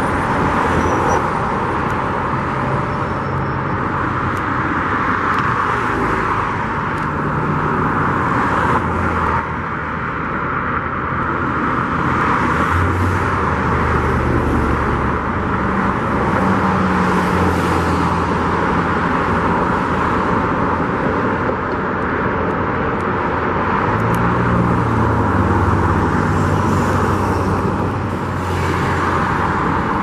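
Road traffic: a steady rush of tyre and engine noise, with the engines of passing vehicles swelling and fading, most strongly twice in the second half.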